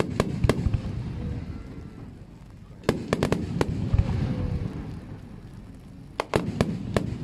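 Aerial firework shells bursting overhead in three volleys of sharp bangs: one at the start, one about three seconds in and one just after six seconds. Each volley is followed by a low rolling rumble and echo.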